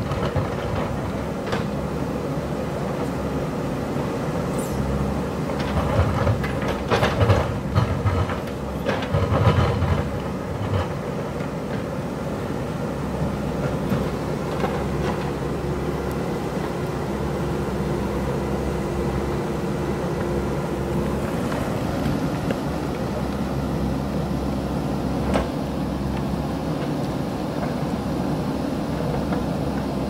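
JCB backhoe loader's diesel engine running steadily under load while the steel digging bucket scrapes and knocks against rock and stones clatter. The knocks and scrapes come thickest about six to ten seconds in, with a few single knocks later.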